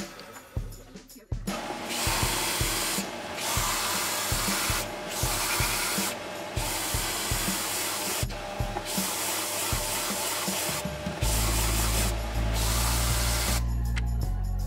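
Stationary belt sander grinding a wooden block, a harsh steady hiss broken by short breaks every second or two as the block is lifted and pressed again. Background music with a steady beat runs underneath, and a low droning music chord comes in near the end.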